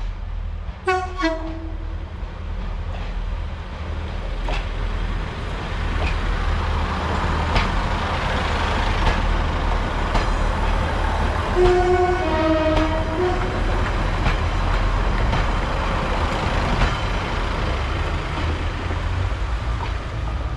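Class 142 Pacer diesel railbus running through, its engine rumbling and growing louder from about four seconds in. It sounds its two-tone horn twice, about a second in and again near twelve seconds, each time a higher note stepping down to a lower one.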